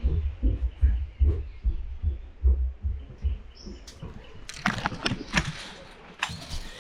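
Irregular dull low thumps of a handheld camera being jostled while walking, followed about four and a half seconds in by a few short bursts of rustling noise.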